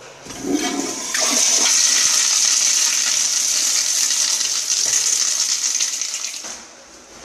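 Kohler commercial toilet flushed by its chrome flushometer valve: a loud, steady rush of water under line pressure that lasts about five seconds, then tails off as the valve shuts.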